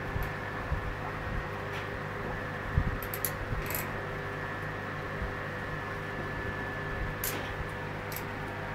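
Steady hum of an aquarium pump, with a few faint clicks and light knocks scattered over it.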